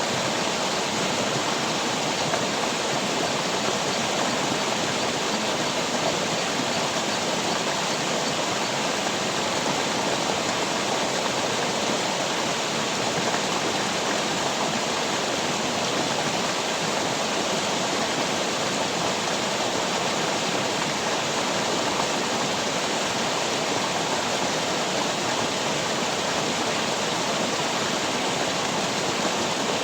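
Steady rushing of water, an even unbroken hiss that holds at one level throughout.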